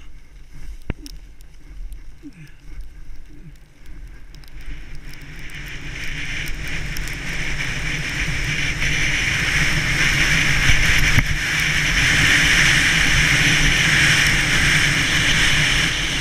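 Wind rushing over a GoPro's microphone and skis running on snow as a skier in a tuck gathers speed down a short slope. It follows a few clicks at the start and grows steadily louder over the first ten seconds, then holds at a loud hiss.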